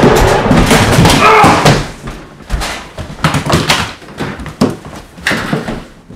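A loud, dense stretch of sound for about the first two seconds, then a string of thuds from hurried footsteps on a wooden floor and a door banging, fading toward the end.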